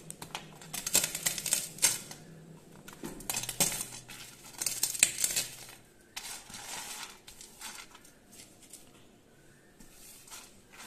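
Fried bori (crisp lentil dumplings) being crushed by hand on a stainless steel plate: crackling crumbs, with pieces clicking and scraping against the metal in several bursts over the first six seconds or so, then only faint rustling.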